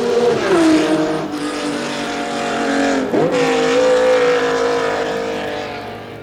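1967 Formula One racing cars at full speed, then changing down as they brake for the chicane after the tunnel. The engine pitch drops about half a second in, dips sharply and climbs again about three seconds in, and the sound fades away near the end.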